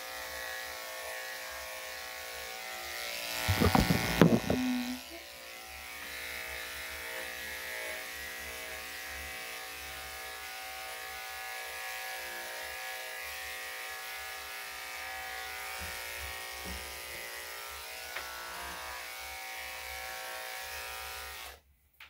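Electric dog-grooming clippers running with a steady buzz, with a brief louder noise about four seconds in. The clippers cut off suddenly near the end.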